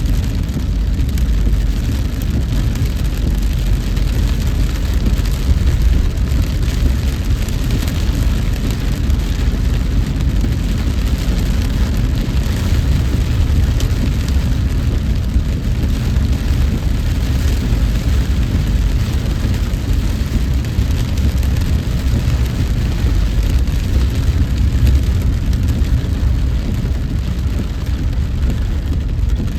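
A car driving through heavy rain: a steady low road-and-engine rumble under an even hiss of rain.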